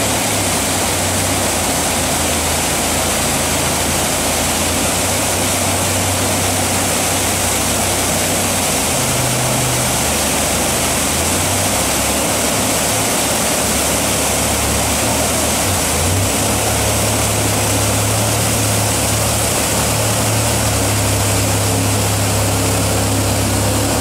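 Whitewater rapids rushing loudly, with a jet boat's engine droning low beneath the water noise, its pitch shifting a couple of times as the boat powers through the wave train.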